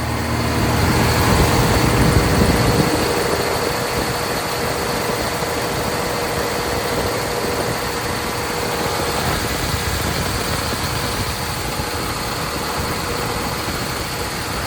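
Kobelco SK500 LC-9 excavator's diesel engine running steadily, heard up close at the engine compartment, with a faint steady whine over the engine noise. It is louder for the first few seconds. The engine runs smooth, without blow-by.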